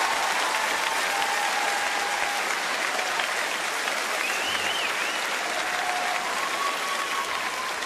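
Studio audience applauding, slowly dying down.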